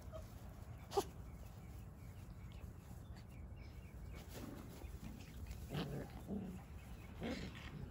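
Australian Shepherd puppies giving a few short, low play growls and yips as they tussle, mostly in the second half. A single sharp click comes about a second in.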